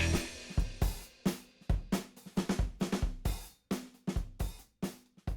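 Music: a drum kit playing on its own, with kick drum, snare and cymbal hits in an uneven rhythm.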